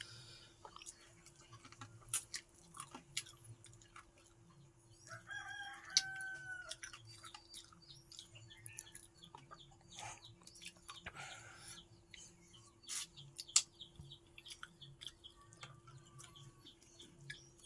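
A chicken gives one drawn-out call about five seconds in, over scattered soft clicks and smacks of rice and curry being mixed and eaten by hand off a banana leaf.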